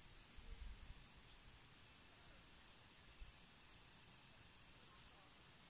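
Near silence: faint outdoor background with a short, high chirp repeating about once a second.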